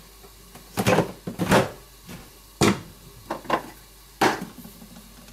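Kitchenware being handled: about half a dozen separate knocks and clatters as a pan lid and utensils are moved and set down on the worktop.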